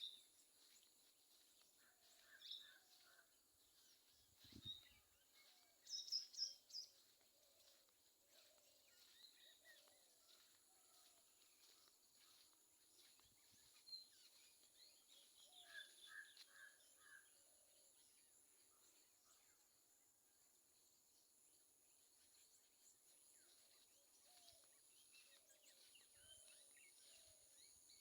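Faint morning birdsong from several wild birds calling here and there. The loudest is a quick run of four high notes about six seconds in, and there is a short four-note phrase around sixteen seconds. A steady high-pitched hum runs underneath.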